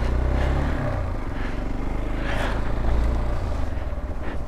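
Hero Xpulse 200 4V motorcycle's single-cylinder engine running as the bike is ridden, a steady low rumble.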